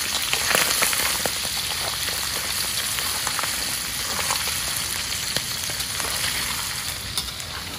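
Pieces of pre-boiled civet meat sizzling in hot oil in a steel wok, with a steady hiss. A metal spatula clicks and scrapes against the pan now and then as the meat is turned.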